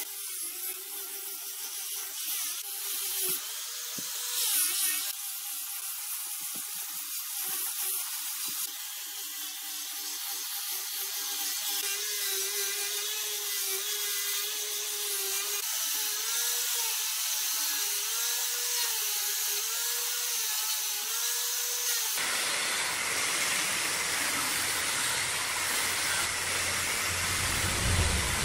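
Large wood lathe running with a tool cutting the spinning wood: a steady motor whine that wavers up and down in a regular pattern over the hiss of the cut. About 22 seconds in the sound changes abruptly to a fuller machine noise with a deep rumble.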